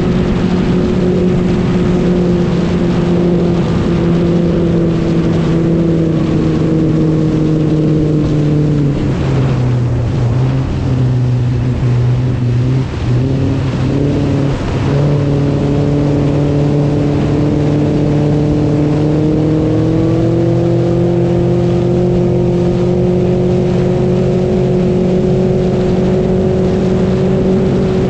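A motor vehicle engine running steadily. Its pitch sags about a third of the way through, jumps back up about halfway, then climbs again as it picks up speed.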